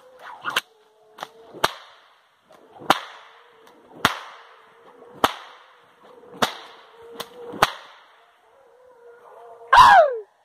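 Hunting hounds barking in the forest: a run of about seven sharp barks roughly a second apart, then a loud falling yelp near the end.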